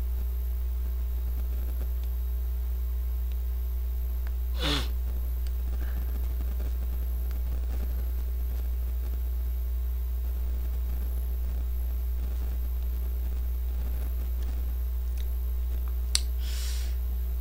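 A steady low hum, broken by one short sound falling in pitch about five seconds in, and by a click and a brief breath-like hiss near the end.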